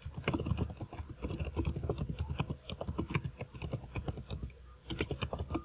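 Typing on a computer keyboard: a fast, uneven run of keystrokes, with a short pause near the end before a few more keys.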